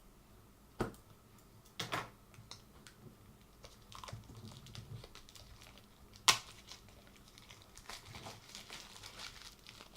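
Apple AirPods retail box being unwrapped and opened by hand: crinkling and tearing of the wrapping with scattered taps and knocks of cardboard. The loudest knock comes about six seconds in, with more rustling near the end.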